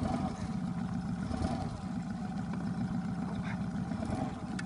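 Boat motor running steadily, a low even hum.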